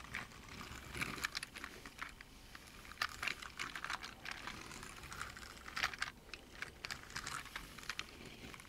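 Die-cast Hot Wheels Hypertruck and trailer rolled back and forth across carpet by hand: faint, scattered small clicks and rattles from the toy's wheels, with no squeaking.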